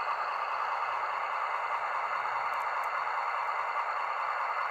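Märklin BR 260 H0-scale model diesel shunting locomotive running on three-rail C-track, giving a steady, even running noise with no clear beat.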